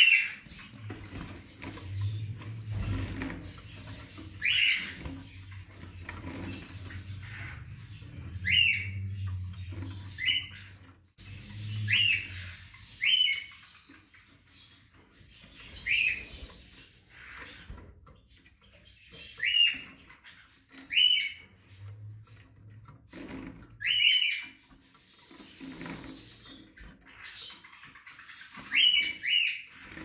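Caged canaries and goldfinch–canary hybrids giving short, rising chirps, about a dozen of them, one every second or few. A low steady hum sits underneath for the first ten seconds or so, then stops.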